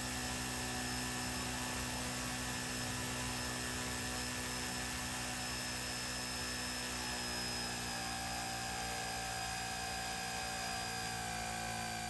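Electric motor of a fixed-wing FPV aircraft spinning its propeller at low throttle, drawing about 3 amps on the bench: a steady whine of several tones over a hum.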